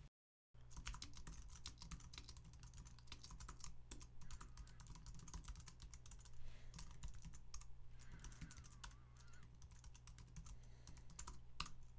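Computer keyboard typing: a fast, irregular run of faint key clicks as a long command line is typed, over a low steady hum.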